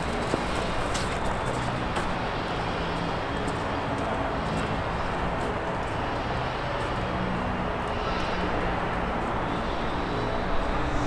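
Steady outdoor urban background noise: a wash of distant traffic with a faint low engine hum.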